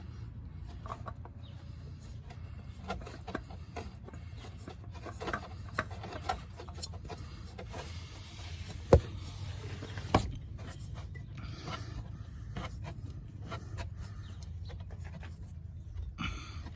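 Hands rubbing and scraping against metal and plastic parts while a new oil filter is fitted onto the engine, with two sharp knocks about a second apart past the middle, over a low steady hum.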